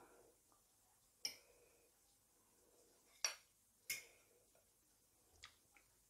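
A few sharp clicks of a metal fork on a ceramic plate, three clear taps and two fainter ones near the end, against near silence.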